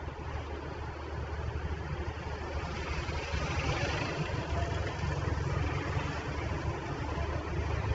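Steady vehicle noise heard from inside a moving car: a low engine and road rumble under a hiss of tyre and wind noise.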